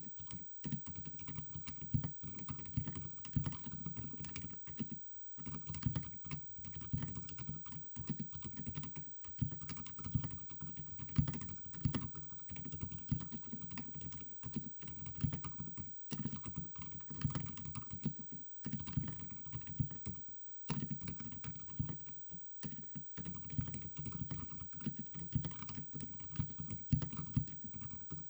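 Continuous typing on a mechanical keyboard with Outemu silent white linear switches and XDA-profile keycaps: a fast run of muted, dull key thocks, softened by the switches' dampers, with a few short pauses.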